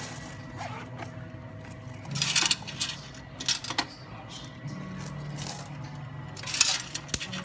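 Quarters clinking and jingling as they are taken out of a coin-operated gumball vending machine's coin box, in three short bursts: one about two seconds in, one at three and a half seconds, and one near the end.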